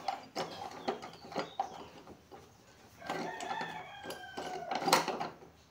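Sharp metal clicks and clinks of the washer and nut being fitted onto the seed drill's rotor shaft, loudest near the end. A rooster crows in the background for about two seconds in the second half.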